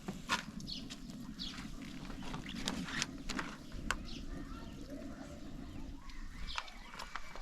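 Farm animals and birds calling in short, high chirps over a low steady rumble that fades about six seconds in.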